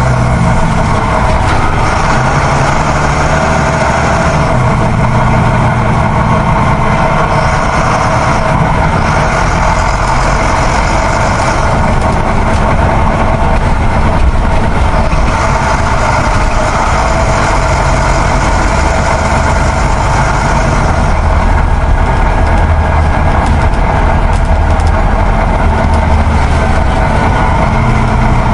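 Large truck engine idling steadily, a rumble that shifts a little in its low notes every few seconds; the toy truck on screen has no motor, so this is a truck engine sound laid over the picture.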